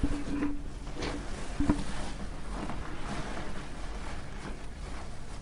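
Quiet room tone during a pause in a recorded talk: a steady low hum with a few soft knocks and two short faint tones, one just after the start and one about 1.7 seconds in.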